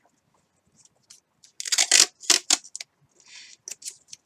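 Masking tape pulled off its roll and torn: a loud ripping rasp with sharp crackles about a second and a half in, then a shorter, softer pull near the end.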